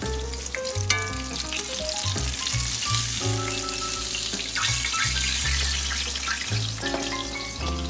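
Hot oil sizzling and crackling in a cast-iron skillet as fried flounder fillets are lifted out with metal tongs, under background music.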